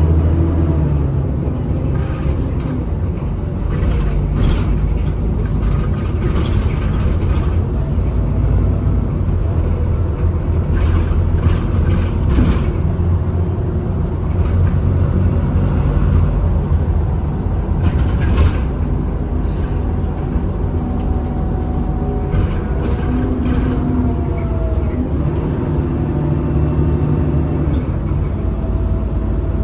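Alexander Dennis Enviro400 double-decker bus heard from on board while in service: engine and drivetrain running steadily, with a tone that slides in pitch as the bus changes speed. There are scattered short rattles and knocks throughout.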